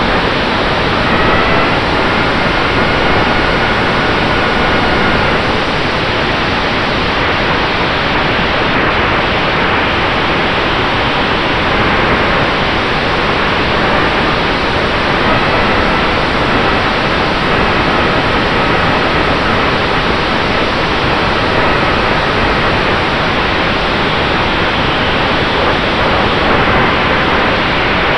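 Steady rushing wind noise over the on-board camera's microphone as the RC P-47D flies, with a faint high whine from its Cobra brushless motor and spinning propeller that comes in twice, about a second in and again around halfway.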